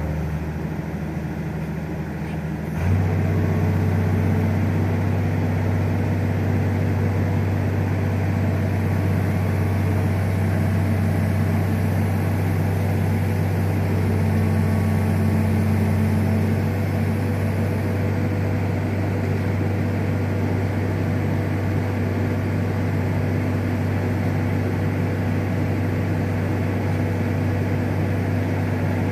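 Crane engine running steadily as the concrete panel hangs on its line; the engine speeds up about three seconds in and eases back a little later on.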